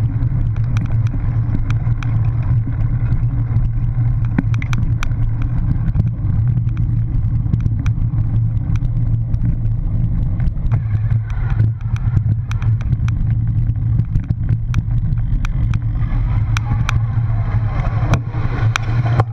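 Wind rumbling over an onboard camera's microphone as a cyclocross bike is ridden over bumpy grass, with the bike and camera mount rattling in many sharp clicks throughout.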